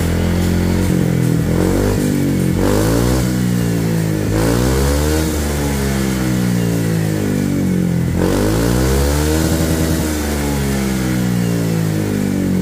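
Honda PCX 160 single-cylinder four-stroke scooter engine running through a bullet-type SKR Racing aftermarket exhaust, revved up and let back down to idle twice.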